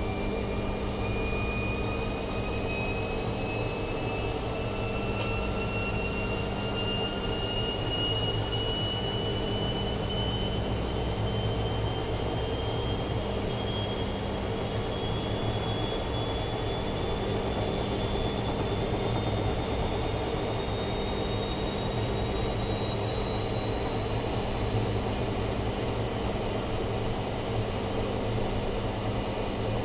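Bosch front-loading washing machine spinning up: the drum rumbles steadily while the motor whine climbs slowly and evenly in pitch as the spin speed rises.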